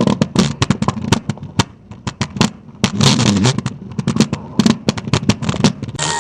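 Cartoon stomach growling: bubbly gurgles and rumbles made of irregular pops and crackles, densest near the start and again around three seconds in.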